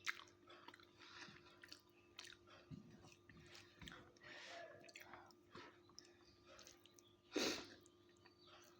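Close-up chewing and soft wet mouth smacks and clicks of someone eating rice with fried mustard greens, with one louder noisy burst about seven and a half seconds in.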